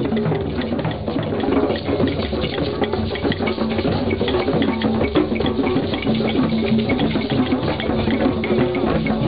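Several drums and other percussion played together in a loose, busy jam, with rapid overlapping hits. A steady low tone sounds underneath.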